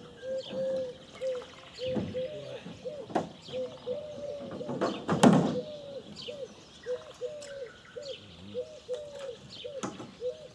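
A bird calling in a fast run of short, repeated, slightly arched notes, with scattered knocks and thuds; the loudest thud comes about halfway through.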